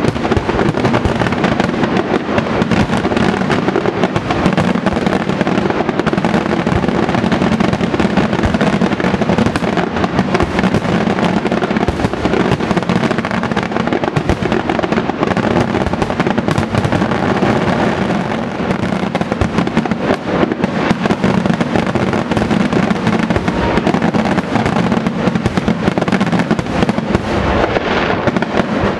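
Fireworks display in a dense barrage: aerial shells bursting and crackling in rapid, overlapping bangs that keep up without a break.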